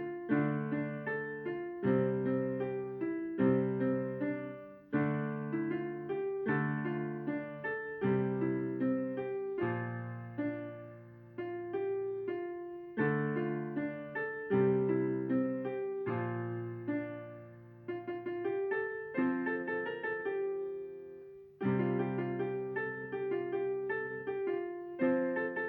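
Piano playing a slow instrumental piece: chords struck every second or two, each left to fade before the next.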